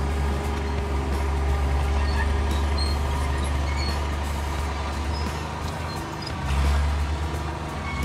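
Cat D6 9U bulldozer's diesel engine running steadily under work, swelling louder for a moment near the end.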